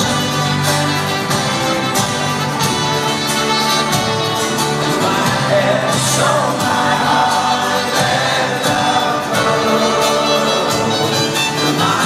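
Folk-rock band playing live with a horn section, with singing over it from about halfway through. Recorded from within the crowd in a large arena.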